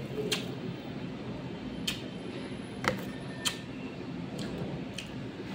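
Metal spoon clicking and scraping against a plastic food container while scooping rice and taro stew: about five sharp, separate clicks over a steady low background hum.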